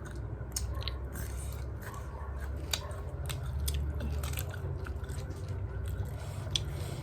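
A person chewing crunchy cabbage, with crisp crunches and wet mouth clicks at irregular moments.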